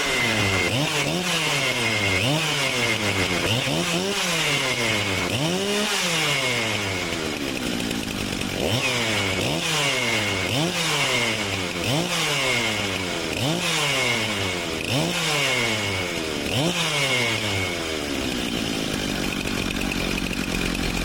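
Stihl two-stroke chainsaw engine revved up and let back down about a dozen times in quick succession, each rev climbing fast and dropping off more slowly, then holding a steady speed near the end. It is a test run after its oil pump was replaced.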